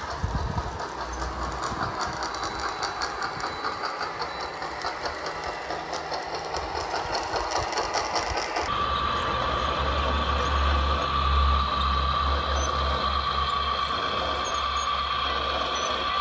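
Electric drive and tracks of a scale RC crawler loader, running with a fast rhythmic clatter as it drives over dirt. About nine seconds in it changes abruptly to the hydraulic pump of a scale RC Volvo excavator, running with a steady high whine over a low hum.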